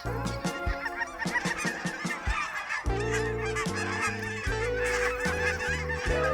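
A large flock of geese calling all at once, a dense overlapping chorus of honks, with music playing underneath.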